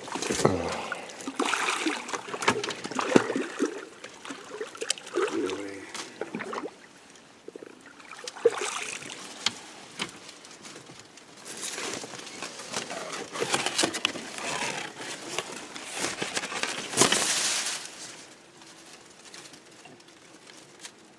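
Blue catfish thrashing and splashing at the water's surface beside a small boat as it is landed. Irregular splashes and sharp knocks come in two busy spells, and it goes quieter near the end.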